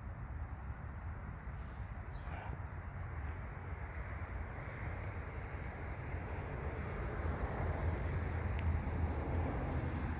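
A low car engine rumble that grows louder in the second half, with crickets chirping steadily over it.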